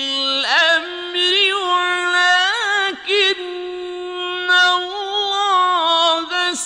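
A male reciter chanting the Qur'an in Arabic in a slow, melodic style, one voice holding long notes with ornamented turns in pitch. It breaks briefly for breath about half a second in and again near three seconds.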